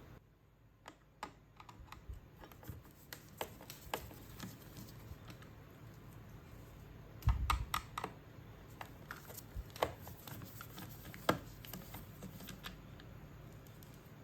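Irregular light clicks and taps of hard parts being handled while a Vax Blade VX60 cordless vacuum is taken apart for its battery, with a heavier knock about seven seconds in.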